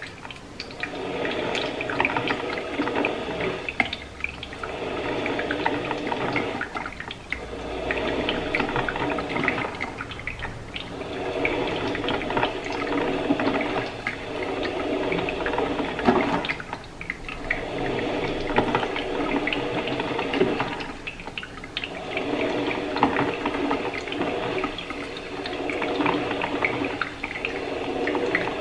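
Drip coffee maker brewing, its hot water gurgling in surges every two to three seconds.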